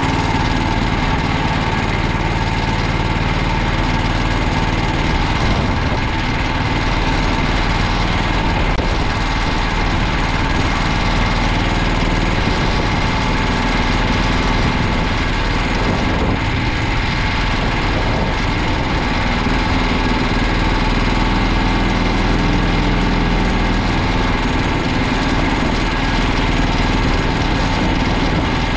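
Go-kart's small engine idling steadily.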